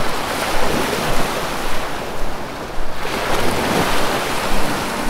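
Steady rushing noise of a Beriev Be-200 amphibious jet's engines and water spray as it taxis on the sea, swelling and easing unevenly, and duller for about a second a couple of seconds in.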